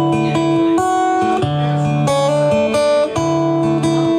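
Acoustic guitar playing a gentle instrumental passage, notes and chords changing about every half second to second.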